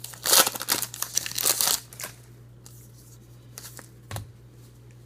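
Trading cards being handled and flipped over: rustling, crinkling bursts for about the first two seconds, then a few faint clicks.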